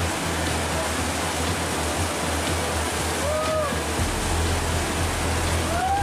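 Whitewater rapids rushing steadily under background music with a low steady bass. A short high cry rises and falls once, about three and a half seconds in.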